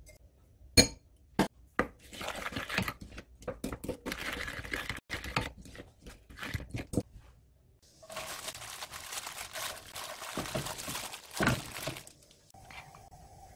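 A wooden spoon stirring a thick chili-paste sauce in a glass bowl: a few sharp knocks against the glass, then quick scraping with small clinks. Later a steadier rustling, scraping stretch runs for a few seconds.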